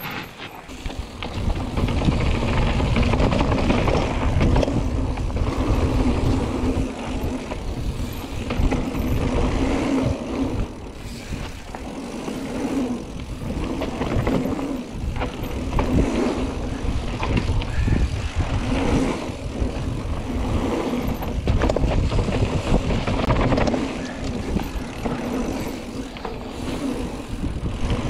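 Mountain bike riding fast down a rough downhill trail: a continuous rumble of tyres over the ground with frequent knocks and rattles from the bike.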